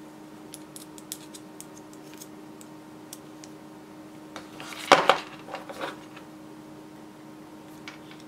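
Light clicks and taps of small screws, screwdriver and gripper parts being handled, with a louder clatter of clicks about five seconds in, over a faint steady hum.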